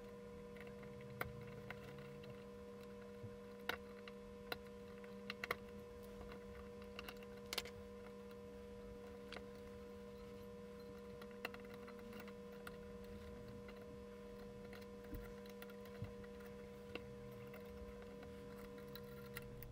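Faint, irregular clicks and ticks of metal tweezers against a photomultiplier tube's thin metal dynode and its support strips as the dynode is worked loose and pulled out, over a steady electrical hum.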